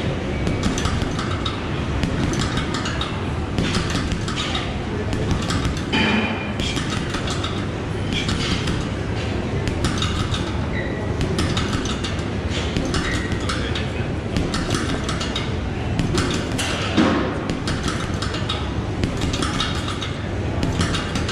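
Fortress boxing gloves punching a heavy bag in rapid combinations, around fifty strikes in twenty seconds, in irregular clusters of sharp hits over a steady low background hum.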